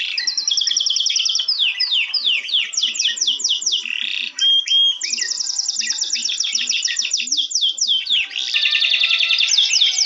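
Songbirds chirping in quick runs of falling high notes, several a second, over soft background music.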